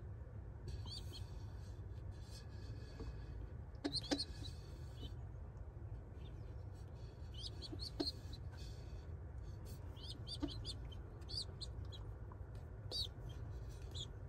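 Young pigeon squabs peeping in short, high squeaks, scattered irregularly as a hand reaches in and touches them, with a few sharp clicks over a low steady rumble.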